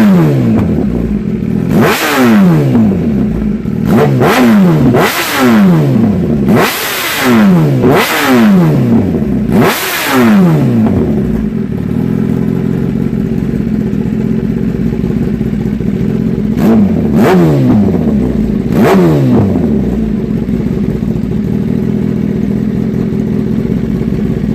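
Kawasaki ZX10R inline-four engine blipped through an Austin Racing GP1R Inconel race exhaust with the catalytic converter eliminated, very loud. It gives about ten sharp throttle revs, each dropping quickly back to idle: a quick series at first, a lull of steady idling, three more revs, then steady idle.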